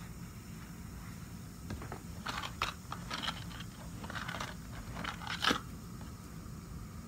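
Rustling of clothing and light handling noises close to the microphone as a scarf and blouse are adjusted: a run of short scratchy rustles and clicks in the middle, over a steady low room hum.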